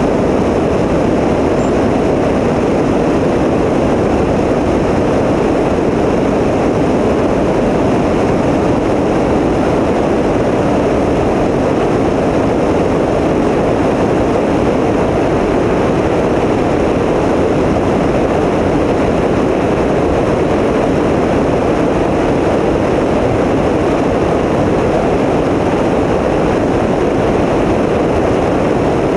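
Tecnam P92 light aircraft's engine and propeller droning steadily in flight, with no change in power.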